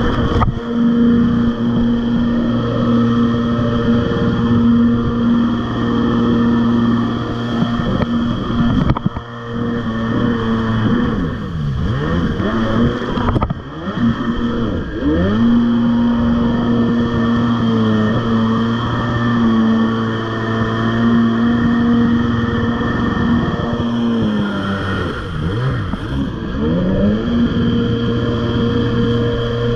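A 1994 Tiger Shark 640 jet ski's two-stroke twin engine running hard at speed with a steady pitch. Several times the pitch briefly sags and climbs back.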